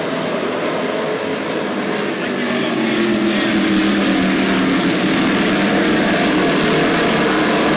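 A pack of dirt-track modified race cars running around the oval together, their engines a steady, loud drone that grows louder about three seconds in as the pack comes nearer.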